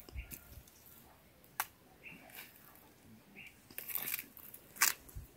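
Faint rustling and a few sharp cracks as a green papaya is twisted and snapped off the tree by hand, its stalk breaking away from the trunk.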